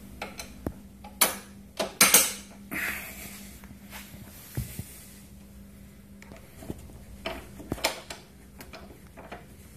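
Scattered clicks and knocks of hands working a mower's handlebar bracket, fitting a bolt and tightening a plastic wing nut, with the sharpest knocks about two seconds in and again near eight seconds.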